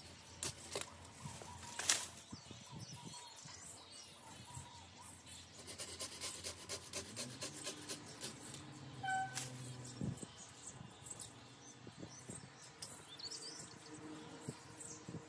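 Magnolia branches being cut back by hand with a pruning tool: a run of small crisp clicks and crackles of twigs and leaves, with one sharper snap about two seconds in. Birds chirp faintly behind it.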